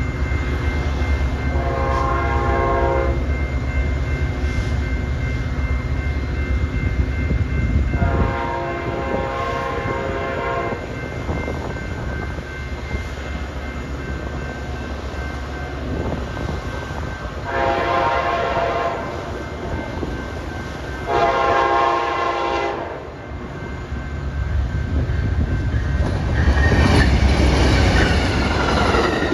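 Passenger train horns sounding at a grade crossing: four multi-note blasts, two in the first ten seconds and two more a little past halfway, over the steady low rumble of moving trains. Near the end, a train rolls past close by and the wheel and rail noise swells.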